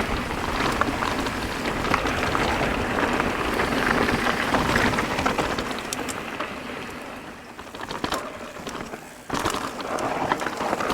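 Mountain bike rolling fast over a dirt trail: tyres crackling over loose grit and small rocks, with clicks and knocks from the bike and wind rushing over the microphone. It quietens about seven seconds in, then sharp knocks return near the end.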